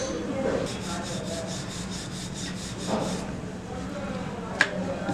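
Wooden rolling pin rolled back and forth over a floured sheet of layered maida dough on a countertop, a rhythmic rubbing of a few strokes a second. There is a sharp click about four and a half seconds in.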